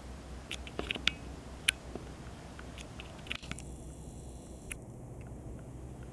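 A few sharp clicks and ticks close to the microphone, most of them bunched in the first two seconds and a couple more later, over a low steady hum.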